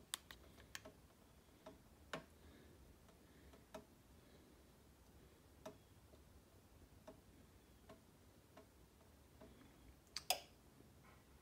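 Near silence with faint, scattered clicks every second or two, and a slightly louder pair of clicks about ten seconds in.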